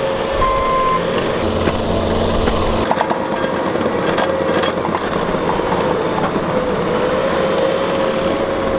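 Bobcat compact track loader working dirt, its diesel engine and hydraulics running steadily under load with a held whine, and a few knocks about three seconds in.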